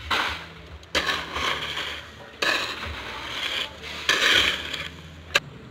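Shovel blade scraping and digging into a pile of crushed-stone gravel, four grinding strokes, while the aggregate is mixed by hand for concrete. A single sharp clack comes near the end.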